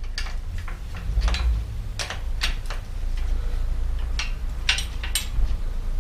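Spanner clicking on a bicycle's rear axle nut as it is loosened to let the wheel slide back for chain tensioning: a series of short, sharp metallic clicks at uneven intervals.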